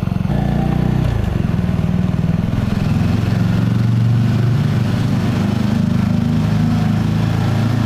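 Mutt DRK-01 250's liquid-cooled single-cylinder engine idling steadily at a standstill, with its radiator cooling fan running hard as the engine heats up.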